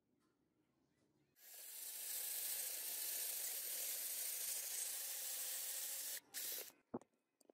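Electric drill boring a twist bit into a metal pommel cap clamped in a vise: a steady, hissing cutting sound that starts about a second and a half in and stops after about five seconds. A brief second run of the drill follows, then a single click.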